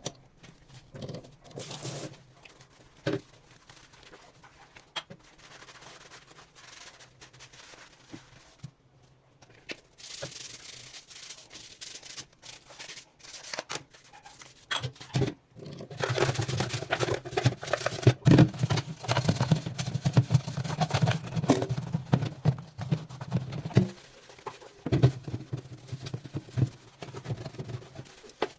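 A blender being washed by hand: scattered knocks and clicks of the jar and parts, turning about halfway through into busy, continuous clatter and scrubbing.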